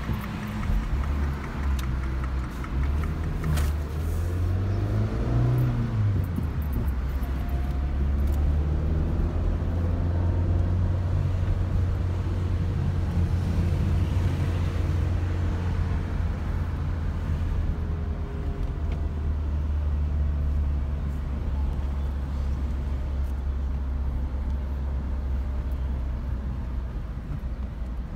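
Car engine and tyre noise heard from inside the moving car's cabin: a steady low rumble. About four to six seconds in, the engine's pitch rises briefly as the car speeds up.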